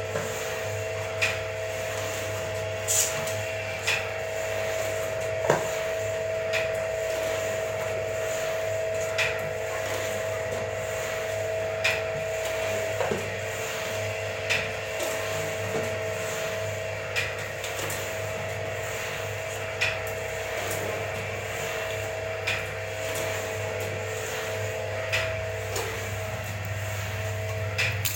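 Semi-automatic cup screen-printing machine running: its electric motor and gearbox give a steady hum and whine, and a sharp click comes about every one and a half seconds as the machine cycles.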